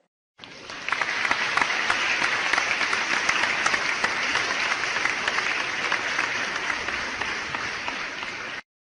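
Crowd applause, many hands clapping together, played as a canned sound effect. It swells in over the first second, holds steady and eases slightly, then cuts off abruptly near the end.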